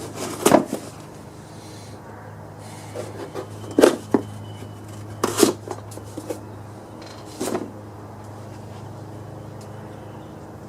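About five separate sharp knocks and clanks, spaced a second or more apart, from parts and tools being handled during reassembly, over a steady low hum.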